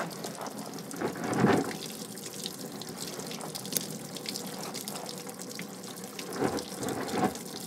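Green antifreeze draining from a 1976 Ford F-150's radiator out of the disconnected lower hose, pouring in a steady stream into a drain pan like a running tap.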